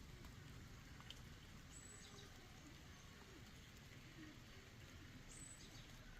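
Faint outdoor background: a steady low rumble with a few faint, short animal calls scattered through it.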